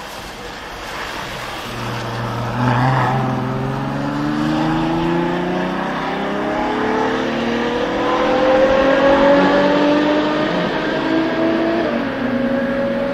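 Sports car engine accelerating hard, its pitch rising steadily for several seconds, then dropping sharply at an upshift about twelve seconds in and climbing again.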